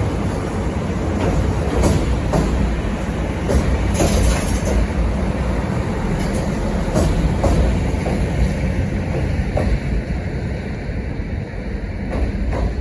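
KTR8500 diesel railcar (ex-KiHa 85) running on the line, a steady low rumble with scattered clicks from the wheels on the track.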